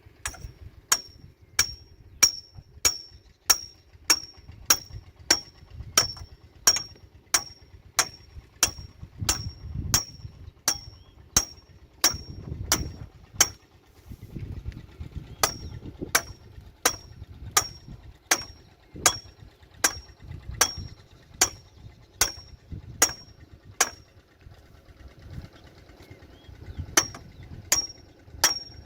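Sharp metallic ticks with a short high ring, about one and a half a second in a very even rhythm, stopping twice for a few seconds and then starting again.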